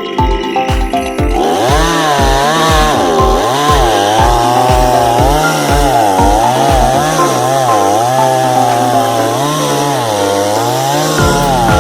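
A Japanese chainsaw running under load, sawing through oak, its engine pitch wavering up and down. Music with a steady beat plays over about the first second and comes back near the end.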